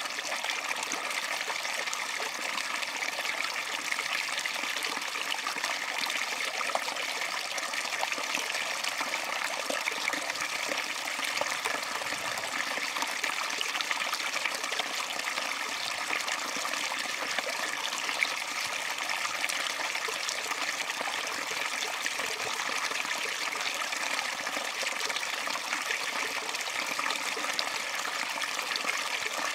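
Stream water spilling steadily through a narrow gap between rocks into a mosquito-net fish trap.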